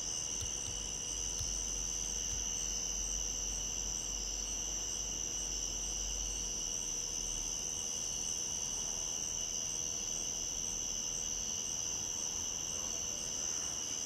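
Steady night-time chorus of crickets and other insects, an unbroken trill on two high pitches.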